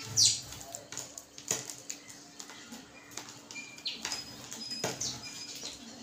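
Small birds feeding at a tabletop of scattered grain: house sparrows flutter their wings and give short high chirps, with scattered sharp pecking ticks. There is one loud falling chirp just after the start.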